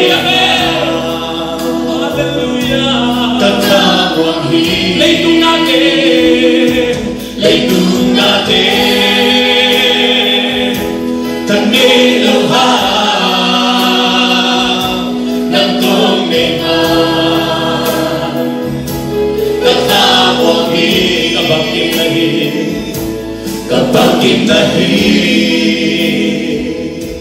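A choir singing a gospel worship song, the voices holding long notes in phrases of a few seconds each.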